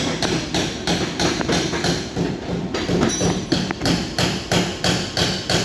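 Rapid, evenly spaced hammer blows on car body sheet metal, about four a second, as a crash-dented panel is knocked back into shape.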